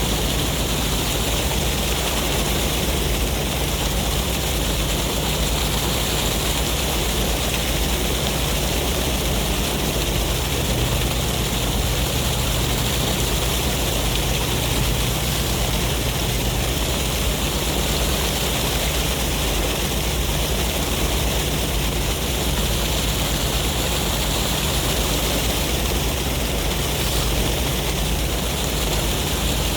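Sea waves and wind making a steady rushing noise with a low rumble underneath.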